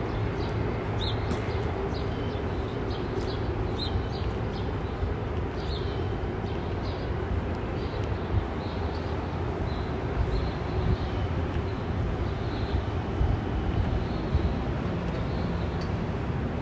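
Steady low rumble of city traffic, with scattered short high chirps over it.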